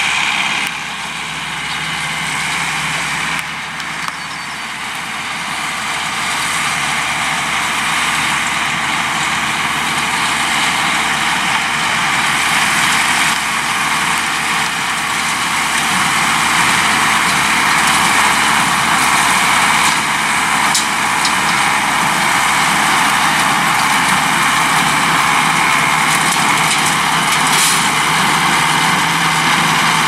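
Case IH 885XL tractor's diesel engine running steadily under load as it pulls a Welger AP 630 small square baler picking up hay, the baler working along with it. The sound grows louder over the first half, with a few sharp clicks later on.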